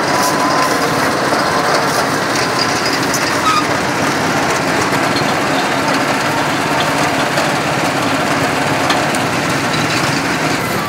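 A small engine running steadily amid busy outdoor market noise.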